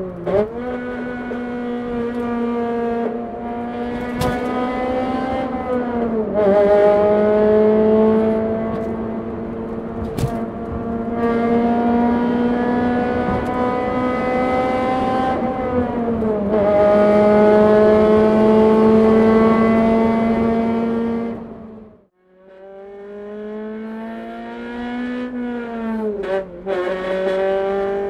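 Honda Civic Type R (FD2) 2.0-litre four-cylinder VTEC engine and exhaust running at steady revs, its note dipping in pitch and climbing back a few times, in a road tunnel. The sound cuts out briefly near the end and then returns.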